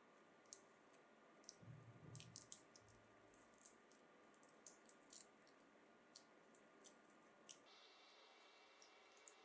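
Near silence with faint, scattered small clicks and taps, a cluster of them a couple of seconds in; the background hiss changes about eight seconds in.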